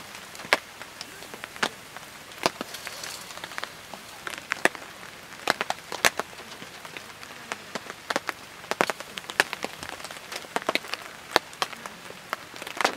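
Charcoal in a small grill crackling, with irregular sharp pops and snaps, a few a second, over a faint steady hiss.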